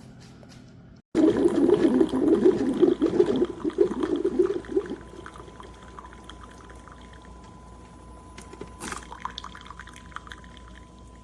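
Liquid pouring and gurgling into a container, starting abruptly about a second in, loudest for the next few seconds, then thinning to a quieter trickle.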